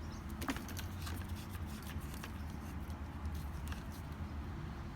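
Faint clicks and rubbing of a hose fitting being screwed by hand onto a pressure washer's threaded port, over a steady low hum.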